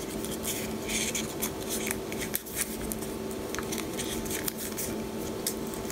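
Insulating tape being handled and pressed around a wire end: a run of soft crackles and small irregular clicks, over a faint steady hum.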